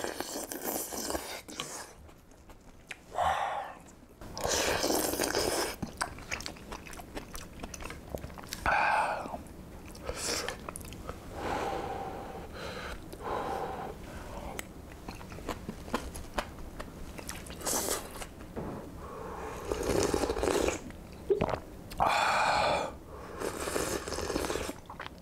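A person eating ramen: noisy slurps of noodles and broth off a spoon with chewing in between, and near the end sips of broth straight from the bowl.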